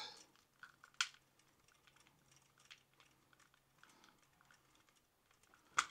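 Faint light clicks and ticks of hands handling the plastic body and arm of an XKRC B6 toy drone, with a sharper click about a second in and a louder one near the end.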